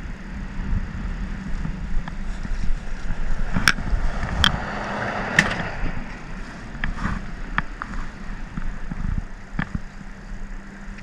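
Wind buffeting the microphone in a low, rough rumble, with a handful of sharp clicks from handling of the fishing gear.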